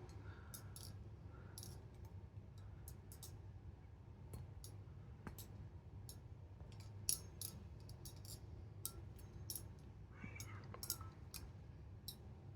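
Remshi Designs Kuno balisong being flipped: quick, irregular light clicks and ticks as the handles swing and meet around the blade.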